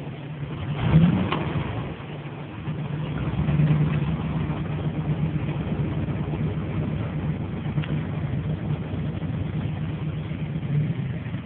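Car engine running with a steady low hum, swelling in loudness about three to four seconds in, with a short loud sound about a second in.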